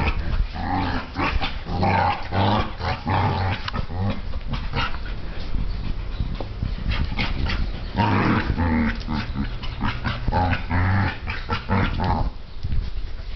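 Two dogs play-fighting, growling in repeated bursts with scuffling clicks, busiest in the first few seconds and again about eight to eleven seconds in, easing off near the end.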